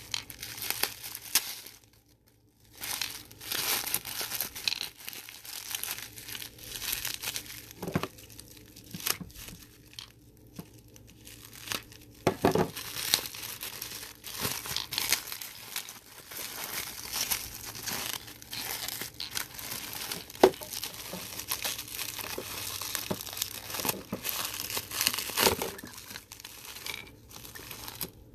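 Packaging being unwrapped by hand: irregular crinkling and tearing, with a brief pause about two seconds in.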